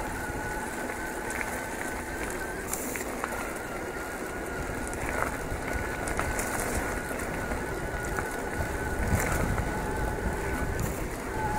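Electric mountain bike rolling along a gravel track: tyre crunch and rattle with wind on the microphone, scattered ticks from stones, and a steady high whine that drops out briefly about three seconds in.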